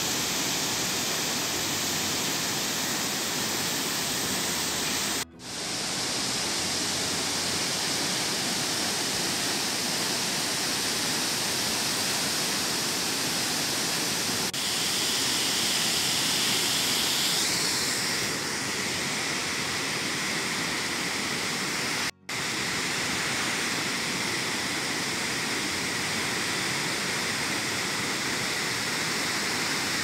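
Steady roar of Dunhinda Falls, the water plunging into its pool, with two split-second drop-outs where the shots are cut, about five seconds in and again about two-thirds of the way through.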